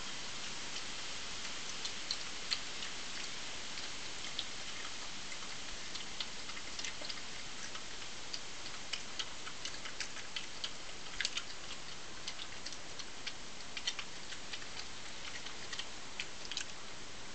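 Badger feeding on scattered food, with irregular crisp crunching clicks over a steady hiss.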